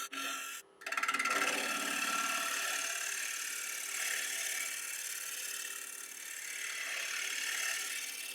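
Wood lathe running with a steady motor tone while a turning tool cuts into the rim of a spinning walnut bowl blank to true it up. The cut is a continuous scraping that starts about a second in, just after a brief break.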